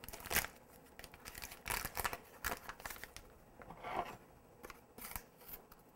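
Faint, scattered scrapes, rustles and light taps as a teaspoon scoops dry pudding mix from its packet and tips it into a plastic blender cup.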